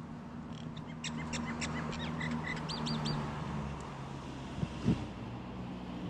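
A bird calling: a quick run of sharp, high notes for about two and a half seconds, ending in a few looping notes, over a steady low hum. A brief knock comes about five seconds in.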